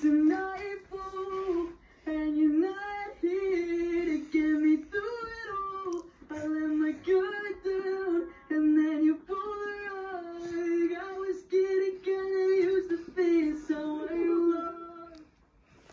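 A song played back through a TV: one voice singing a melody of held and sliding notes, which stops about a second before the end.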